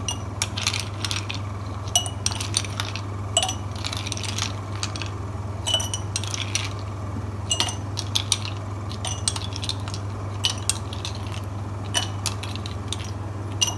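Ice cubes being spooned out of a glass bowl and dropped into glass tumblers: a long run of irregular sharp clinks of ice on glass and spoon, over a steady low hum.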